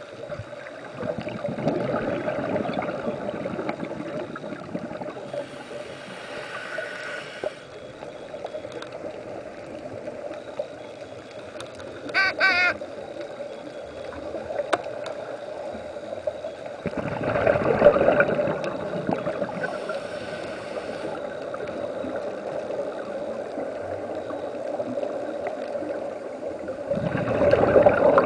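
Scuba regulator breathing heard underwater: a hiss of inhaled air, then a rush of exhaled bubbles, repeating slowly, with the bubble rushes the loudest. A brief wavering tone sounds about twelve seconds in.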